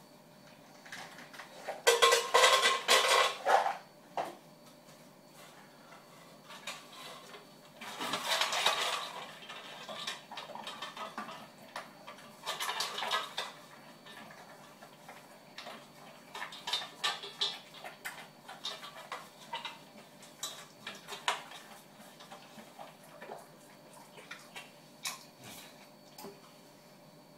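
Stainless steel dog bowl clattering and rattling as an English bulldog eats from it out of a person's hand, in three loud bouts in the first half, then lighter clinks and clicks of the bowl.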